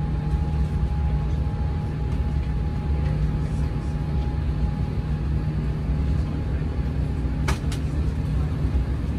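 Steady low roar of an Airbus A350 in flight, heard inside the cabin: engine and airflow noise during the climb after takeoff, with a faint steady hum. Two sharp clicks close together about seven and a half seconds in.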